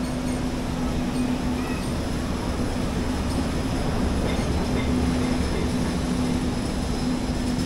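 Steady mechanical rumble with a constant low hum.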